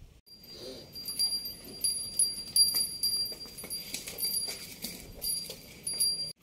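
Small bells jingling on and off as a cow walks, with a rattle of clinks. The jingling is loudest about two and a half seconds in and again near the end.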